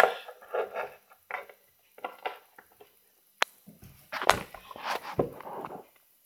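Small plastic toy figures and accessories handled on a carpet: light taps, clicks and rustles, with a sharp click about three and a half seconds in and a few louder knocks and bumps just after.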